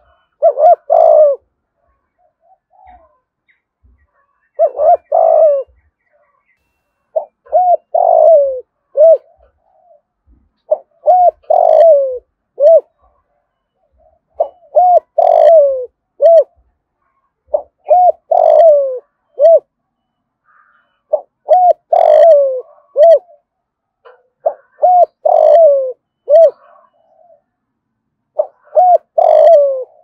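Spotted dove cooing, a short phrase of several coos with one longer falling note, repeated about every three to four seconds. It is the deep 'giọng thổ' style of coo that keepers use to lure wild doves.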